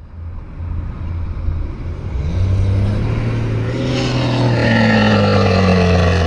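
Diesel truck engine running, then revving up about two seconds in and holding at higher revs.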